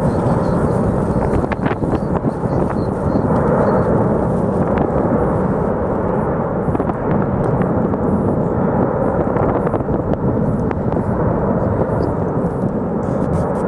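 Lava fountain jetting from a volcanic vent: a loud, steady, deep rushing noise with no let-up, dotted with scattered sharp cracks.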